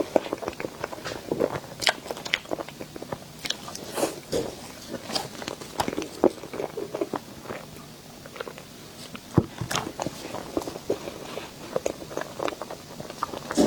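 Close-miked eating of a sweet dessert: bites and chewing with a dense, irregular run of crisp crunching clicks and a few louder snaps.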